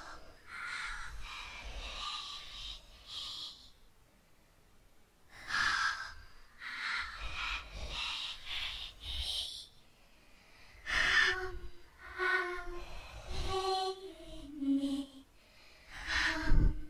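A person's heavy, uneven breathing and gasps, like someone in a panic attack, with breaths about a second apart and a couple of short pauses. In the second half several breaths carry the voice, like short groans.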